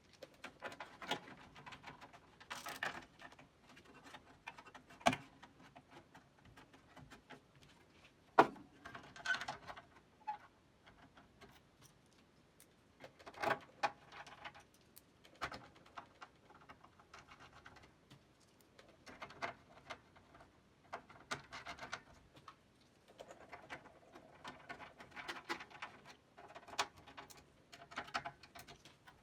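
Irregular small clicks, taps and rattles of hand tools, screws and metal parts being handled while a computer's boards are fitted back into the case, with a few sharper knocks.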